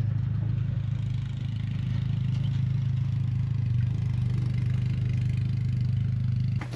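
A vehicle engine idling steadily just outside an ice fishing shelter, a low pulsing hum heard through the fabric walls.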